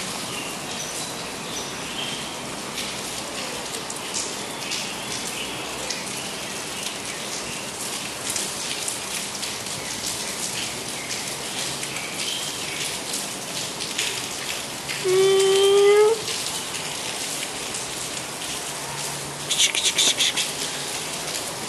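A tabby cat meowing once, a single slightly rising call of about a second, about two-thirds of the way in, over a steady patter of rain. Near the end a short burst of sharp, high clicks.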